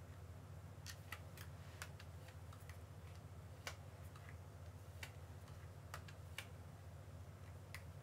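Light, irregular clicks from a corded hair iron clamping and sliding on hair, about ten over a few seconds, the sharpest near the middle, over a faint steady low hum.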